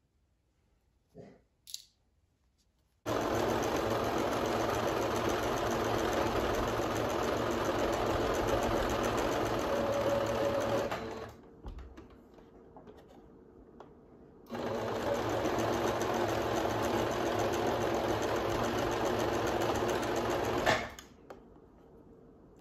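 Singer SewMate computerized sewing machine stitching fabric in two steady runs, the first about eight seconds and the second about six, with a pause of a few seconds between them.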